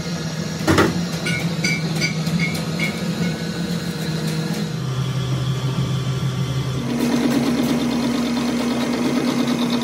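Metal lathe running, turning down an excavator bucket pin built up with weld beads: a steady machine hum that drops in pitch about five seconds in and rises with a brighter cutting noise about seven seconds in. A single sharp knock under a second in.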